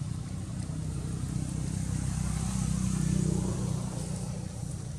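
Low, steady engine drone that swells louder about three seconds in and then eases off.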